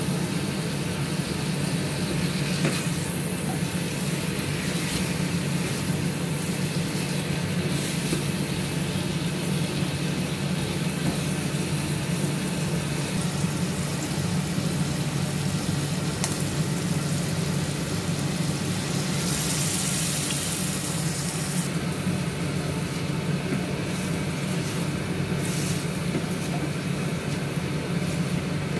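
Chicken pieces frying in a wok, a steady sizzle over a constant low hum. The sizzle swells for a couple of seconds about two-thirds of the way through.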